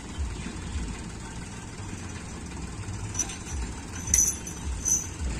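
Tractor's diesel engine idling with a low, steady throb. Three short, sharp clinks come in the second half, the loudest a little after four seconds in.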